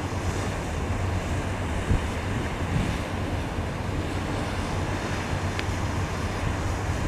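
Wind buffeting the microphone with a steady low rumble, over the wash of choppy river waves.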